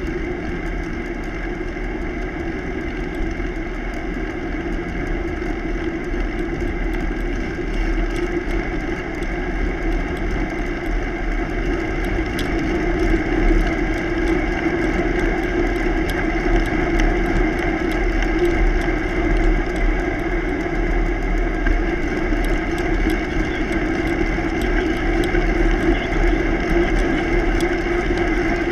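Steady rumble of a bicycle rolling along a gravel road: tyre noise on the grit and wind on the camera's microphone, with light ticks scattered throughout. It slowly gets louder.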